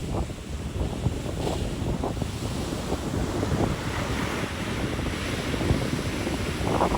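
Ocean surf breaking and washing up the beach, with wind gusting against the microphone. The wash of a wave builds from about four seconds in and is loudest near the end.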